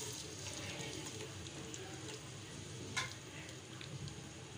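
Sliced onions in hot ghee in an aluminium degchi, frying with a faint, low sizzle and scattered small crackles, with one sharper click about three seconds in.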